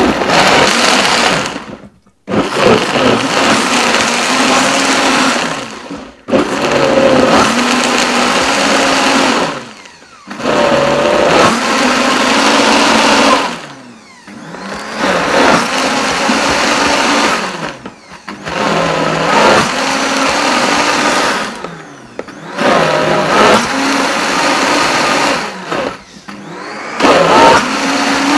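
Optimum G2.1 high-speed blender running its preset sauce program on a liquid sauce mix. The motor speeds up and down and drops out briefly about every four seconds.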